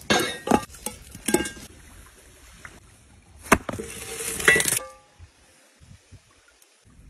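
Cast-iron cookware being handled: a run of metallic clinks and knocks in the first second and a half, a single sharp knock about three and a half seconds in, then a short rustling, clattering stretch before it goes quiet.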